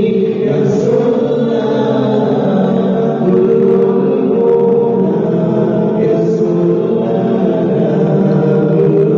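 Outro vocal music: several voices singing together in long held notes, without instruments standing out.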